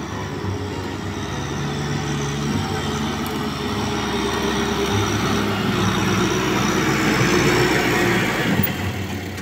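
Farm tractor engine running under load as it pulls a disc plough through the soil. It grows louder as the tractor comes close, then drops away sharply near the end.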